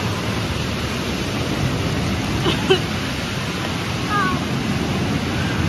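Steady rush of moving water on a water-park ride, with a few brief high voices calling out in the middle.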